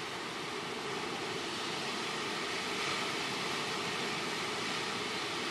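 Hurricane-force wind rushing through tree leaves: a steady, dense rush that swells a little around the middle.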